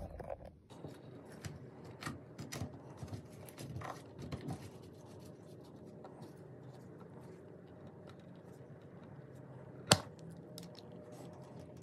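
Faint handling of neodymium magnets in magnetic slime: small scrapes and clicks over the first few seconds, then one sharp click about ten seconds in, the loudest sound.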